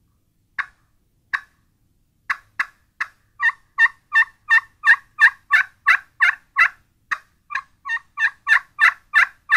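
Friction turkey pot call played with a striker, imitating a hen turkey: two single notes, then a long series of yelps that quickens to about three a second.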